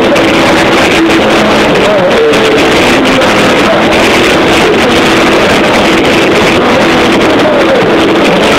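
Punk rock band playing live: guitar and drums with a man singing lead. The recording is loud and constant throughout, with no breaks.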